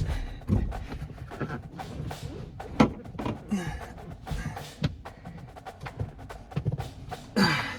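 Irregular knocks, clicks and short creaks of a plastic seatback shell being pried and worked back and forth to free its clips from the seat's metal bars. There is a sharp knock about three seconds in and a louder creaking knock near the end.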